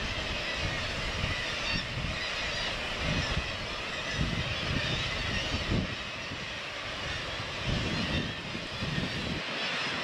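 Wind gusting on the microphone in irregular low rumbles, over a steady wash of sound from a seabird colony on sea cliffs.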